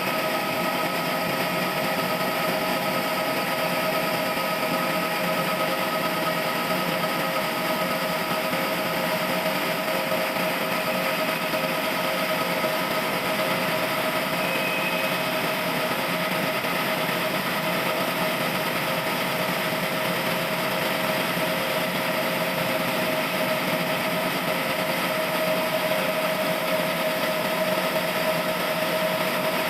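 Sawmill machine running steadily, a constant mechanical drone with a steady whine and no change in pitch or level.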